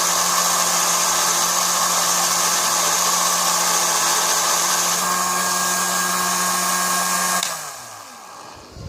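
Home-built mini lathe's cordless-drill motor and gearbox running steadily with a whine. About three-quarters of the way through it is switched off and spins down with a falling pitch, and a small knock follows near the end.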